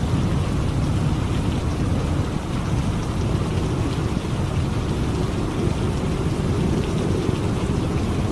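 Steady rain of a thunderstorm, an even wash of falling water with a deep, continuous low rumble underneath.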